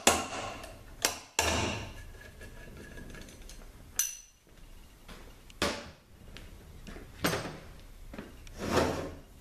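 Slide hammer threaded into a 42RLE transmission's front pump, its weight slammed back against the stop again and again to pull the pump out of the case: about seven sharp knocks at uneven intervals.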